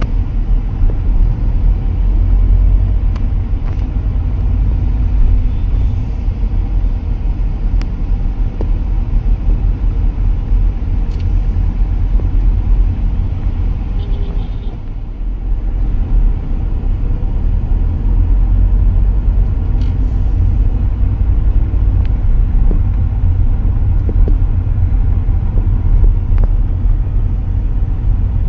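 Road traffic: a loud, steady low rumble that dips briefly about halfway through.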